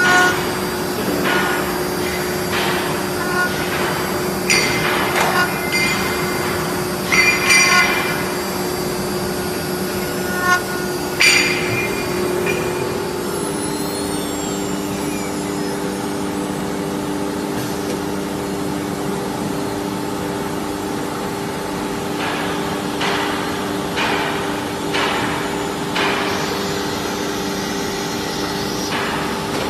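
SUDIAO 4-axis ATC CNC router running with a steady hum whose pitch shifts about halfway through, with sharp knocks and clanks in clusters in the first dozen seconds and again near the end.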